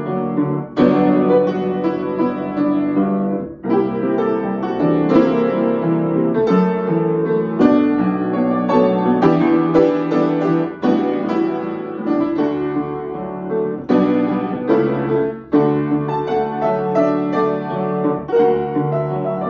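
Solo upright piano playing a pop ballad arrangement, with chords and melody in flowing phrases and brief breaths between them.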